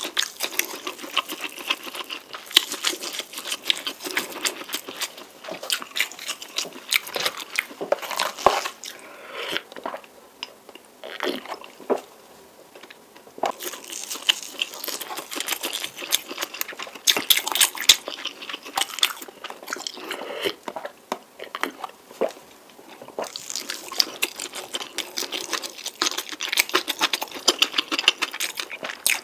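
Close-miked eating of spicy noodles: a dense run of wet chewing clicks and crunches, easing off twice for a couple of seconds.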